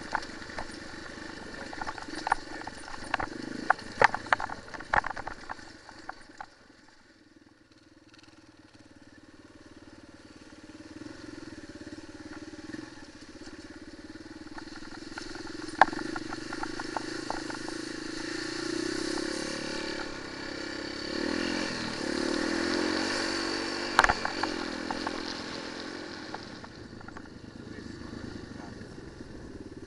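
Single-cylinder enduro motorcycle engine running on a rocky trail, with a rapid clatter of knocks from stones and the bike's chassis in the first few seconds. The sound falls away briefly, then builds again, the revs rising and falling in the second half, with two sharp knocks, one past the middle and one later.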